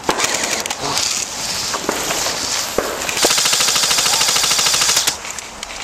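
Airsoft rifles firing on full auto: short rattling bursts of rapid clicks, then one longer unbroken burst of about two seconds starting about three seconds in.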